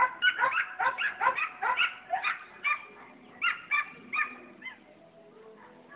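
A dog yipping and barking in short, high calls, about three a second at first, then more spaced out, trailing off about five seconds in.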